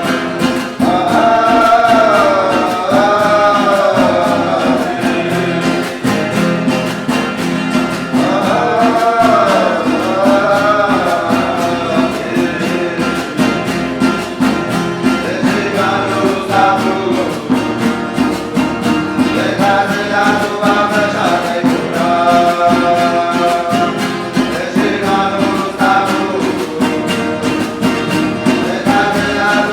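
Huni Kuin chant sung by voices, their melodic lines bending and rising and falling, over a steadily strummed string instrument.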